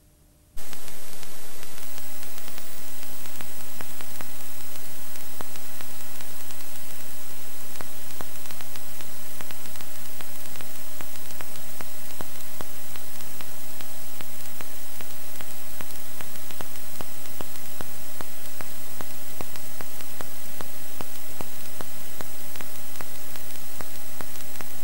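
Loud, steady static hiss with faint steady hum tones under it, cutting in abruptly about half a second in: the noise of a TV channel's audio track recorded off-air behind a still caption board.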